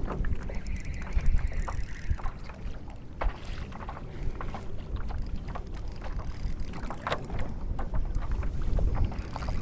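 Wind buffeting the microphone on a fishing kayak, with a low rumble and scattered sharp clicks and knocks from the hull and fishing gear.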